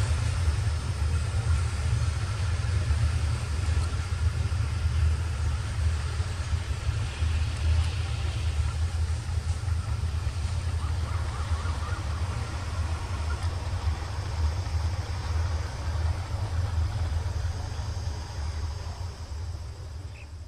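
Low, steady rumble of a train running away along the track, fading out near the end.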